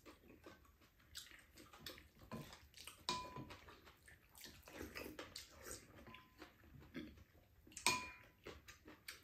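Quiet mealtime eating sounds: wooden spoons scraping and knocking against a frying pan and ceramic bowls, with chewing and mouth smacks between them. Two brief ringing clinks stand out, about three and eight seconds in.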